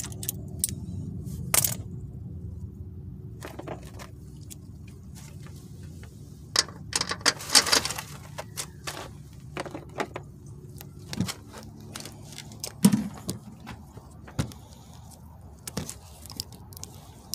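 Scattered metallic clinks and rattles of hand tools being handled around a car's front suspension, including locking pliers being taken off a sway bar link stud, with a denser clatter about halfway through, over a steady low hum.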